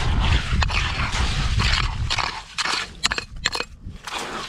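Wind buffeting the microphone for about the first two seconds, then a few sharp clicks and scrapes as a small hand pick chips into wet gravel and rock.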